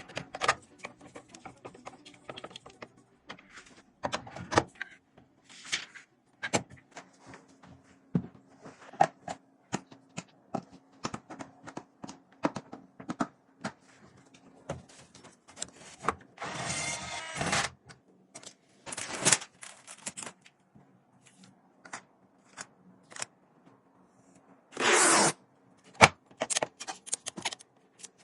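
Gaming PC parts being handled and fitted together: scattered sharp clicks and taps with a few brief scraping, sliding noises, the loudest a second-long scrape about 25 seconds in.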